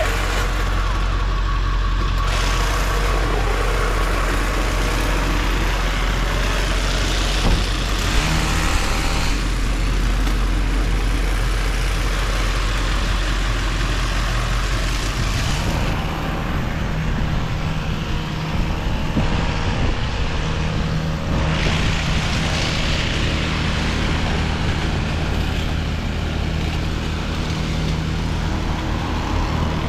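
An engine running steadily, with a change in its tone about halfway through.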